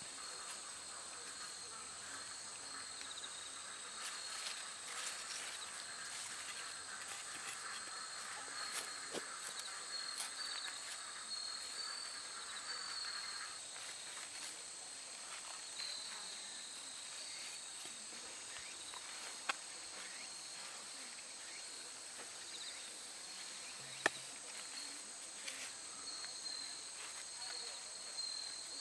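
A steady outdoor chorus of insects calling in high, sustained tones. A second, lower and more warbling insect chorus drops out about halfway through. Two sharp clicks come later, about five seconds apart.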